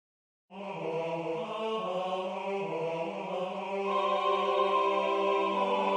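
Choral music starts about half a second in: a sung melody moving through short notes over a held low note, with more voices joining in sustained chords in the second half.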